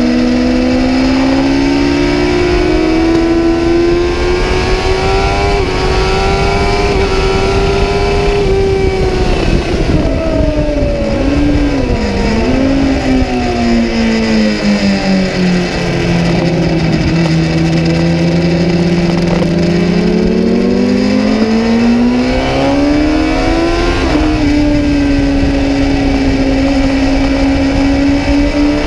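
Kawasaki ZX-10R's inline-four engine at track speed, heard from on the bike: it climbs in pitch under throttle, then the pitch falls with a few quick rises and dips as it slows for a corner, stays low through the bend, and climbs again before settling near the end. A steady rush of wind noise runs underneath.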